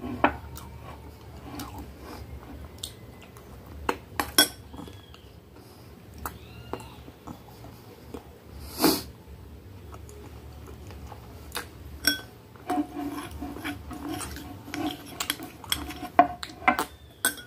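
Metal spoon clinking and scraping against a small cut-glass dessert bowl in a series of sharp clinks, with eating sounds in between.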